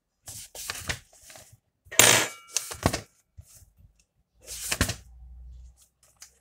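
Pages of a paperback test workbook being flipped and turned by hand: a few quick papery flicks and rustles, the loudest about two seconds in and another just before five seconds.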